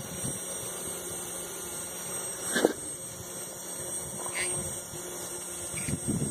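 Automotive electric fuel pump running dry, with no fuel flowing through it: a steady motor hum with a thin high whine. A short, sharp sound stands out about two and a half seconds in.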